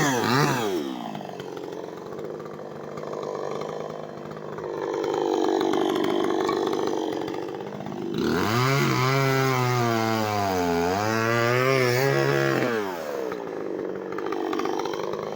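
Chainsaw cutting firewood, its engine pitch sagging and rising as the chain loads up in the wood, loudest in the second half.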